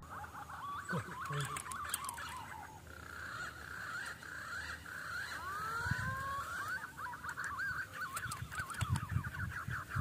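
Wild birds calling in the forest canopy: many quick chirping and whistling calls overlapping throughout, joined near the end by deeper low calls.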